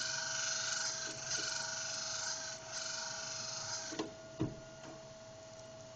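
Camshaft grinder machinery running with a steady hiss and hum. About four seconds in, the hiss stops and a few metallic clicks and one sharp knock follow as the indexing is switched to another lobe's position.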